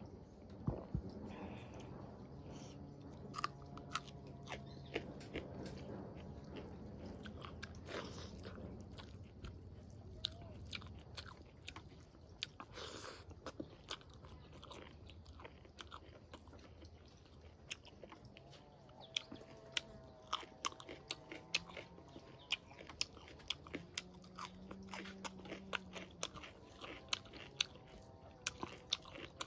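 Close-up mukbang eating sounds: a person chewing mouthfuls of rice and vegetable curry eaten by hand, with many small mouth clicks and smacks.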